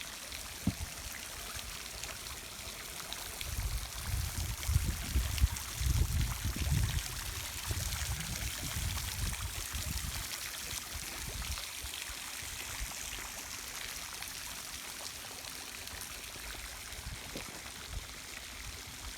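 Steady hiss of running, trickling water, with low rumbles and thumps from about 3 to 11 seconds in.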